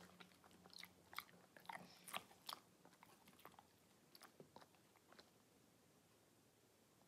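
Dog chewing a rawhide strip: irregular crunches and clicks of teeth on the hide, thick over the first few seconds, then sparser and dying away near the end.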